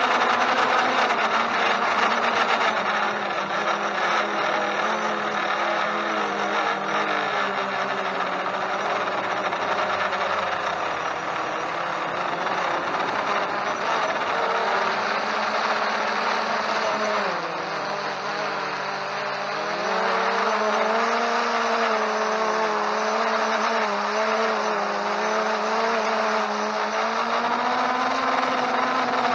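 Holystone HS700D quadcopter's motors and propellers whirring, several tones that drift up and down in pitch as the throttle changes. The pitch and level sag for a few seconds about two-thirds of the way through, then rise again.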